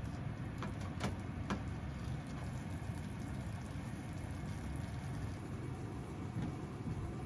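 Sauce sizzling and bubbling around pork steaks in a frying pan as it reduces, over a steady low hum, with a few sharp clicks of tongs and spoon against the pan about a second in.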